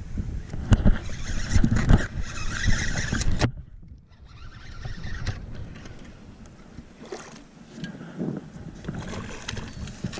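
Knocks and handling noise on a small fishing boat. The sound is loudest for the first three seconds or so, cuts off suddenly about three and a half seconds in, then goes on more quietly with a few scattered knocks.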